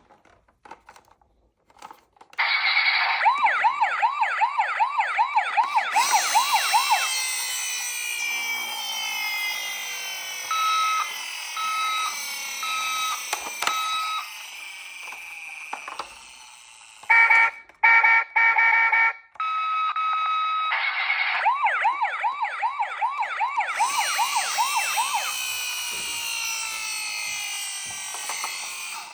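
Toy ambulance's electronic siren running through its patterns. A fast yelp of quick rising-and-falling wails gives way to slower sweeping wails with four short beeps, then a few choppy bursts of a two-tone hi-lo, then the fast yelp again.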